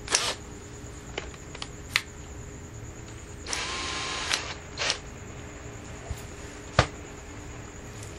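Scattered clicks and knocks from hands working on a small generator's engine and its HHO hoses. A hiss lasting under a second comes about three and a half seconds in, over a faint steady hum and high whine.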